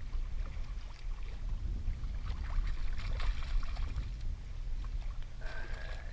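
Water slapping and sloshing against a kayak hull, with wind rumbling on the microphone and scattered small splashes and clicks. A brief steady high tone sounds near the end.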